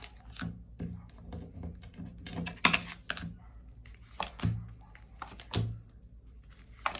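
Tarot cards being handled on a table: irregular light clicks and taps as cards are moved and laid down, with a few sharper taps spread through.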